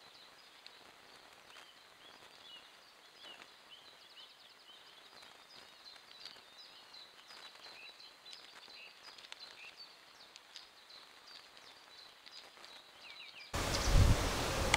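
Faint birdsong in woodland: many short chirps and trills from several birds over a quiet background hiss. Near the end the sound changes abruptly to a much louder steady hiss and low hum, with a single thump.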